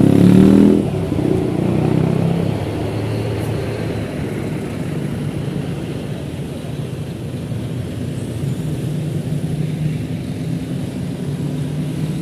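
Large bus's engine running close by, loudest and shifting in pitch in the first second, then settling into a steady low drone.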